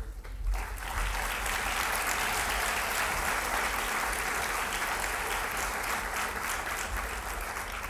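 Audience applauding, starting about half a second in, holding steady and tapering slightly near the end.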